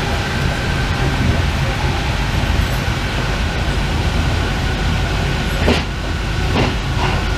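Rubber-tyred Paris Métro Line 1 train running at speed: a steady rumble with a thin steady whine, and a few sharp knocks near the end.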